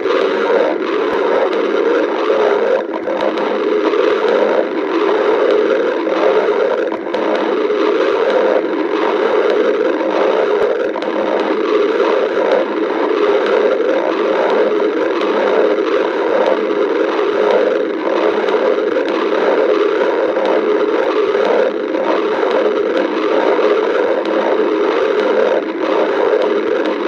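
Human stomach growling, recorded close up: a continuous, unbroken run of gurgling and rumbling that never pauses, the sound of a hungry, empty stomach.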